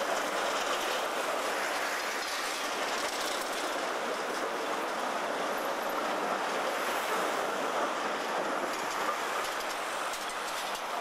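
Electric tram passing close by, its steel wheels running on the street rails in a steady rush of noise.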